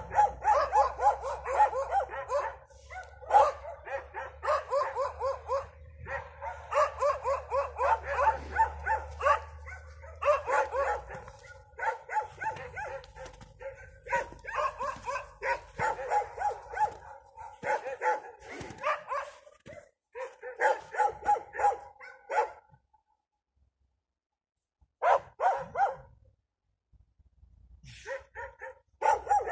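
A feral dog pack barking at an intruding dog in fast, continuous volleys, typical territorial barking. The barking breaks off for a few seconds about three-quarters of the way through, then resumes in short bursts.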